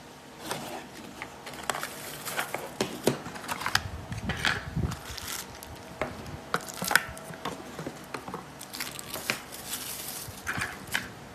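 Unboxing a mobile phone: a cardboard phone box being opened and handled, then the phone and accessories in clear plastic bags picked up, with plastic crinkling and scattered light clicks and knocks of cardboard on the table.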